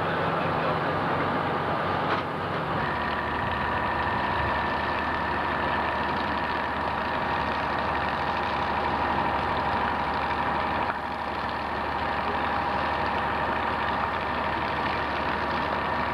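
Fire apparatus engine running steadily, with a steady high whine joining it about three seconds in.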